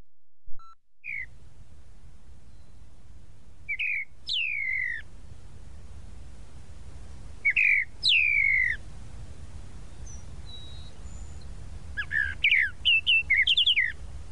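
Tropical mockingbird calling: a short downward note about a second in, then two calls each made of a short note followed by a longer note sliding downward, and a quick run of short chirpy notes near the end, over a low background rumble.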